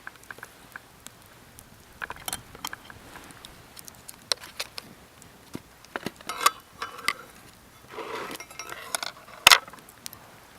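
Metal cookware and utensils being handled: scattered clinks and knocks, a few with a brief ring, and one louder knock near the end.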